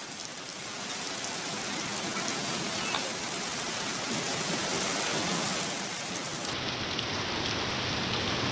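Heavy rain falling steadily: a dense, even hiss of rain on wet pavement and parked cars.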